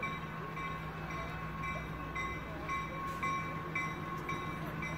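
A steady low hum with a faint high tone pulsing about twice a second.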